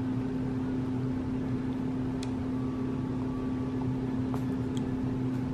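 Steady low mechanical hum with one strong held tone, from a running household appliance or air-handling unit. A few faint short ticks sound over it.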